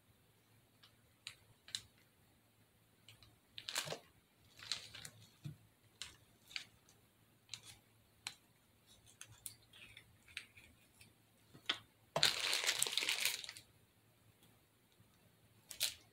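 Light scattered clicks and taps of small tools being handled on a tabletop. About twelve seconds in comes the loudest sound, a second and a half of plastic crinkling as a piping bag is picked up and handled.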